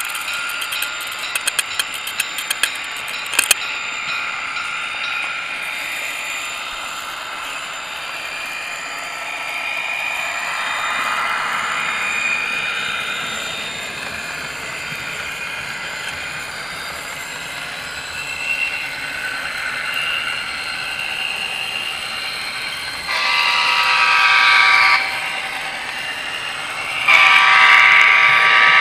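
HO-scale model train running, with its wheels and motor making a steady running noise and a whine that rises and falls. Sharp clicks come in the first few seconds. A loud horn sounds twice near the end, first for about two seconds and then again a second or so before the end.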